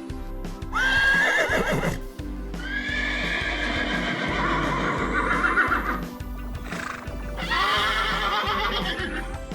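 Horse whinnying three times over background music. The first whinny, about a second in, starts high and quavers down in pitch; the second is long and wavering, and the third comes near the end.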